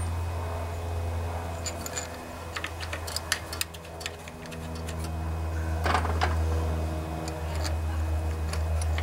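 Small metallic clicks and taps of a lawnmower carburetor's throttle linkage and rods being handled and hooked into place, in clusters about two to four seconds in and again around six seconds. A steady low hum runs underneath.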